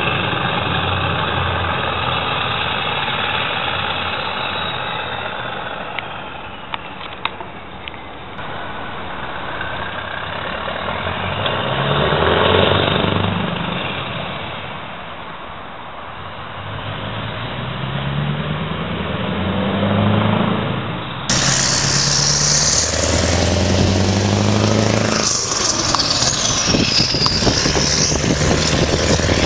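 Scania V8 truck engine pulling a loaded semi-trailer away and accelerating through the gears. The engine note swells and fades as the truck moves off, and in the second half it repeatedly climbs in pitch and drops back at each gear change.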